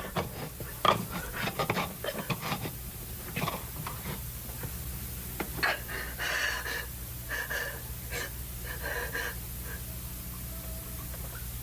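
A woman gasping and panting in distress in irregular, uneven breaths, over a steady low hum.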